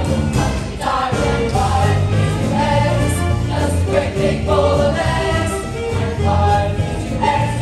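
A musical-theatre cast singing together in chorus over an instrumental accompaniment, with held notes over a steady bass.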